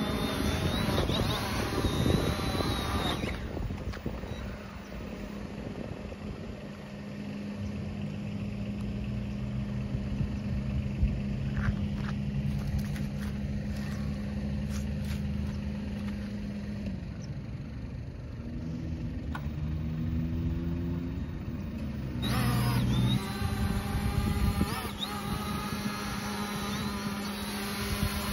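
Small quadcopter drone (ZLL KUN SG908, 1806 brushless motors) whining with its propellers in low hover, the whine dropping away about three seconds in as it settles. A lower steady hum runs through the middle, and the motor whine comes back about 22 seconds in as the drone climbs away.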